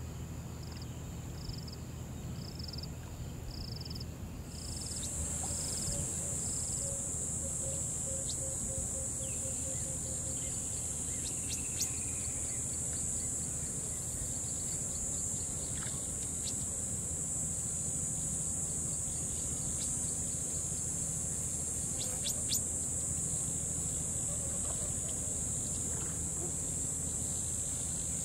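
A steady, high-pitched insect chorus that grows suddenly louder about four seconds in, over the low, even rush of river water. In the first several seconds a faint chirp repeats about twice a second.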